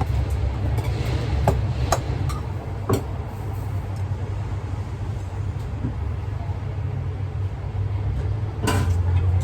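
Steady low engine-like rumble, like an idling or passing vehicle, with a few sharp clicks and knocks about one and a half, two and three seconds in and a brief clatter near the end.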